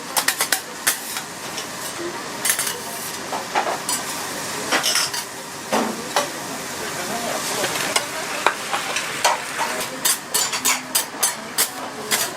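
Egg fried rice sizzling in a hot pan, with a metal spatula repeatedly clanking and scraping as it is stirred. The clanks come quick and close together near the end.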